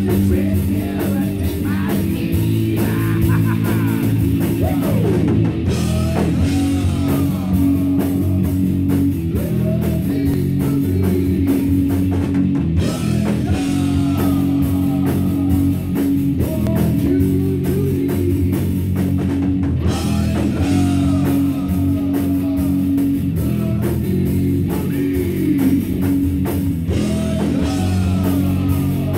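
Rock music: guitar over a steady drum-kit beat, with sustained held notes and bending pitch lines.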